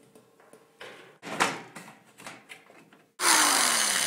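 Knocks and clatter of a TV's metal back cover being handled, then about three seconds in a power drill runs, driving a screw into the back panel, its motor note falling as it goes.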